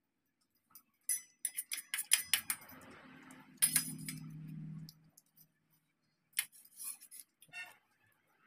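Metal spoon clinking and scraping against a stainless steel bowl while eating noodles, in short clusters of light clicks. A low hum runs underneath for a couple of seconds in the middle.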